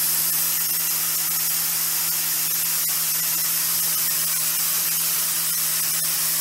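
Angle grinder running at high speed with fishing line tied to its disc, the line whipping through the air as a steady loud hiss over the motor's low hum.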